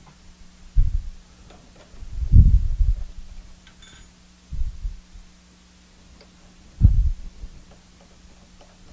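Dull low thumps and knocks of hands handling a drill bit and the chuck at a milling machine, four of them at uneven intervals with the loudest about two and a half seconds in, and a faint metallic clink about four seconds in. A steady low hum runs underneath.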